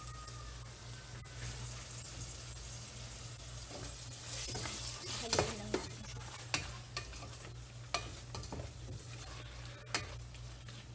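Shredded chicken sizzling in butter in a stainless steel pot. From about four seconds in, a utensil scrapes and clicks irregularly against the pot as the chicken is stirred.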